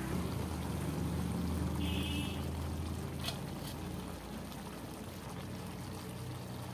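Steady rushing sound of an LPG gas stove burner under a pot of curry on a middle flame, with a low hum, and a light click a little after three seconds.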